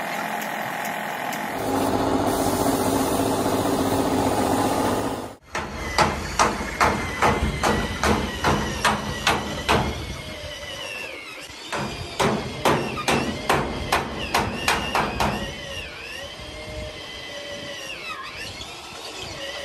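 A power sander runs steadily on the truck cab's roof panel for about five seconds and then stops. After that comes hammering on metal, sharp blows about two to three a second in two runs, and near the end quieter work on the cab with some squeaky rising and falling tones.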